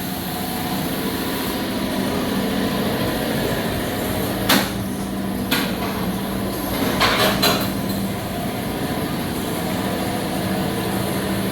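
A steady machine hum in a workshop, with a few sharp metallic knocks and clanks from tools working on a car body being torn down, most of them around the middle.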